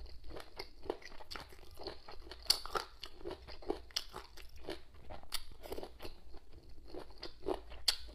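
A person chewing crunchy cold boneless chicken feet salad, with irregular crisp crunches several times a second.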